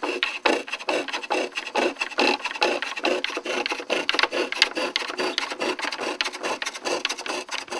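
A wooden-framed scroll saw's fine blade cutting a curve in a thin wooden board: a fast, even rasp of many quick strokes a second.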